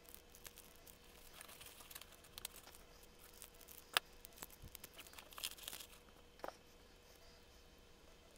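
Small clear plastic parts bag crinkling faintly as it is opened and handled, with a couple of sharp light clicks, the loudest about halfway through.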